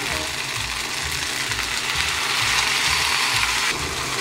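Sauce poured over a chicken, green pepper and onion stir-fry in a hot frying pan, sizzling. The sizzle swells about a second and a half in and falls back near the end as the pan is stirred with a wooden spatula.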